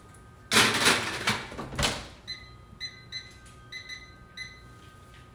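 A metal sheet pan being put into an oven, with two loud clattering noises in the first two seconds. Then about six short electronic beeps from a keypad as a cooking timer is set.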